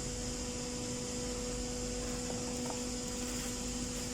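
Steady background hum with two low tones and an even hiss, and a couple of faint ticks in the middle.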